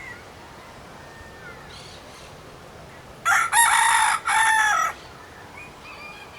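A rooster crowing once, a single cock-a-doodle-doo about three seconds in that lasts under two seconds, over a faint steady hiss.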